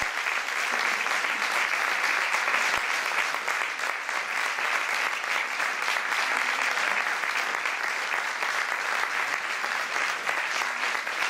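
Audience applauding, a dense, even clapping that holds steady throughout.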